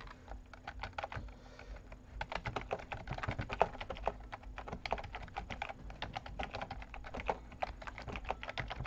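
Keys of an Alienware TactX gaming keyboard being typed on: a rapid, irregular run of clicks as the keys are tried out for their feel.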